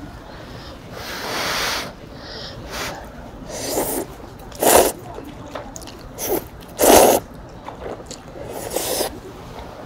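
Hot udon noodles slurped from a cup, in a string of short slurps. Two of them are loud, and there is a longer breathy rush about a second in.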